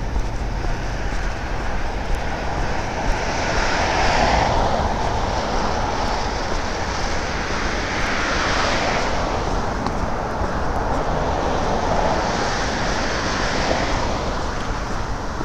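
Road traffic: cars going by on the road, the tyre and engine noise swelling three times as they pass.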